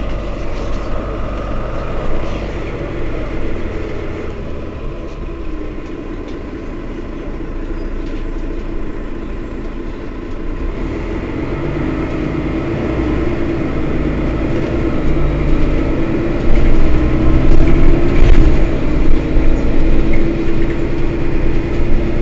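Mercedes-Benz Citaro facelift city bus engine idling at a stop, a steady low rumble that grows louder and heavier in the second half.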